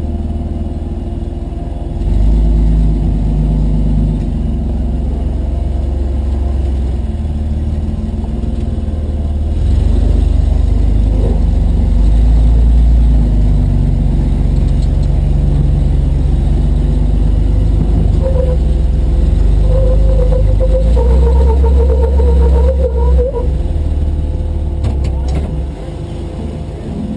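Off-road vehicle engine running and revving in surges as it crawls over rock, with a higher whine for a few seconds about two-thirds of the way through.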